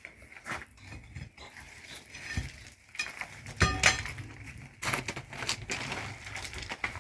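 Scattered knocks and clinks of hard objects, with a short ringing clink a little under four seconds in, the loudest sound here.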